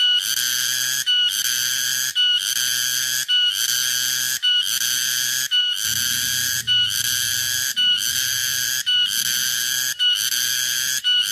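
Cicada (tonggeret, garengpung) calling: a shrill, loud buzz broken into even phrases about a second long, each opening with a brief higher note, repeating about ten times.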